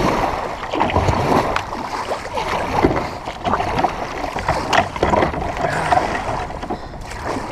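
Sea kayak being paddled through rough water: paddle blades splashing and water washing against the hull, with scattered small knocks and wind rumbling on the microphone.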